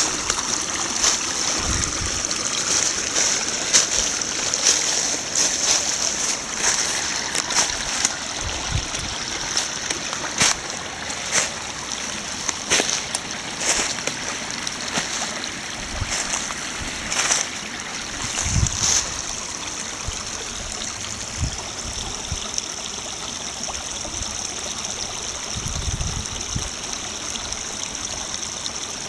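Small snow-melt brook babbling over gravel, a steady rush of running water with frequent small splashes and trickles, busier in the first two-thirds.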